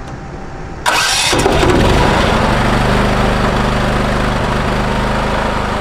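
Small open-frame portable generator engine being started: it catches about a second in and settles into a steady, loud run.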